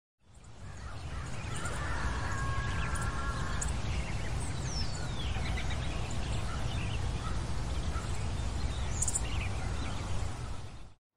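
Outdoor ambience of birds calling over a steady low background rumble, fading in at the start. A call with several held tones comes about two seconds in, a high whistle falls in pitch about four and a half seconds in, and scattered high chirps follow. The ambience cuts off suddenly near the end.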